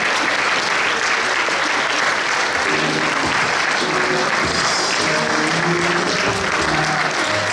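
Theatre audience applauding steadily. Music comes in under the applause about three seconds in.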